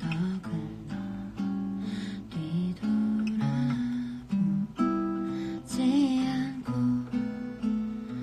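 Acoustic guitar strummed, the chords changing every second or so.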